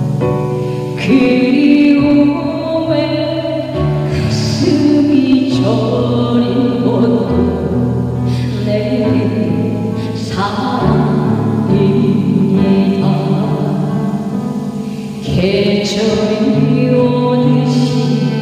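A Korean pop ballad: a woman singing over a full instrumental backing with a steady bass line.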